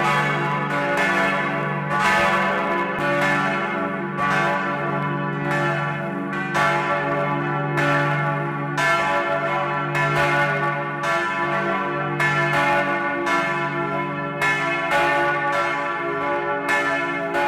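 Full peal of four swinging bronze church bells, cast by Hamm of Staad and tuned to C♯, E, F♯ and G♯, heard close up in the belfry. Their strikes come every half second or so and overlap, ringing over a steady low hum.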